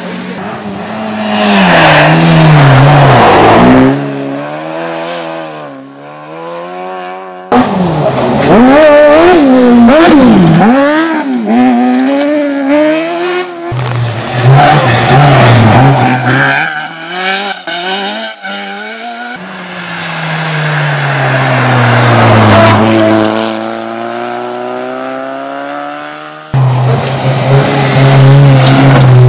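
Rally cars on a loose dirt stage, passing one after another in several short takes. Each engine revs hard, then drops and climbs again through gear changes and corners, with the tyres scrabbling on loose dirt.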